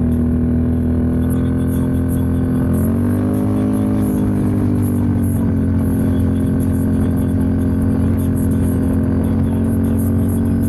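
Can-Am Outlander 650 XMR ATV's V-twin engine running under way through an aftermarket MBRP muffler, a steady exhaust note. Its pitch rises as the throttle opens about three seconds in, then eases back down a couple of seconds later and holds steady.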